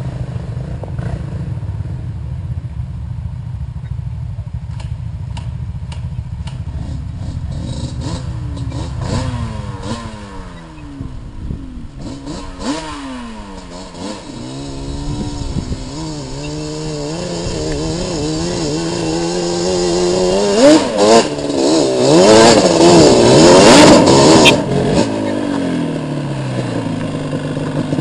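Several ATV (quad) engines on a steep dirt trail climb, a low steady running at first, then revving up and down with the throttle, several at once. One quad comes close and is loudest a little past two-thirds in, then the sound eases.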